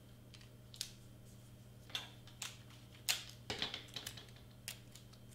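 Scattered short crackles and taps of clear tape being pulled off and torn by hand and cardstock being handled, about half a dozen at irregular intervals, with a quick cluster just past the middle.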